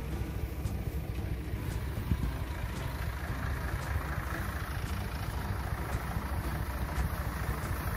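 Tractor engine running steadily, driving the pump of a tractor-mounted sprayer. About three seconds in, the hiss of the hose-fed spray gun comes up as the trees are sprayed.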